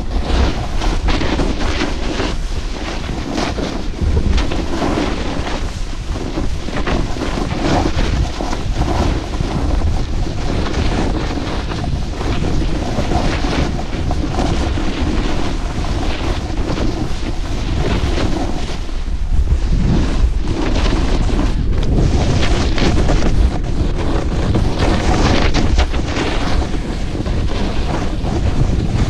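Wind rushing and buffeting over an action camera's microphone during a fast descent on snow, a loud, steady rush with a shifting texture, mixed with the scrape of edges on snow.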